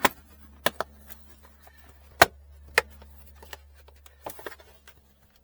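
Plastic trim access panel being pried out of a Tesla Model 3 footwell: its pressure-fit tabs and clips pop loose in a series of sharp snaps, with four loud ones in the first three seconds and a few softer ones after.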